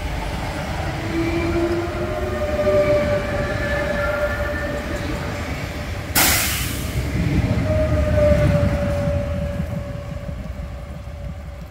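Renfe series 447 electric commuter train running past along the platform, its traction motors whining in several tones that drift slowly in pitch over the rumble of wheels on rail. About six seconds in comes a sudden loud burst of hiss lasting under a second, followed by more rumble and whine that fades near the end.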